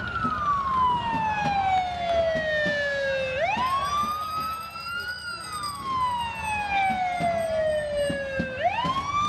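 Police car siren on a slow wail: the pitch climbs quickly, then slides down over about three seconds, repeating twice.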